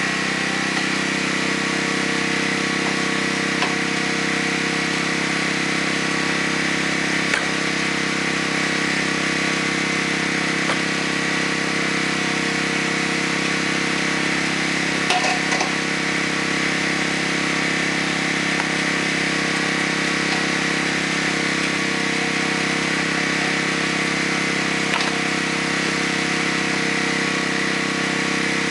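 A small engine running steadily at an even drone, with a few faint knocks about 7 and 15 seconds in.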